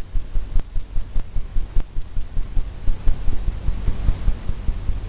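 Paint-loaded brush tapping repeatedly against a stretched canvas, making a run of soft, low thumps at about three to four a second as evergreen foliage is dabbed on.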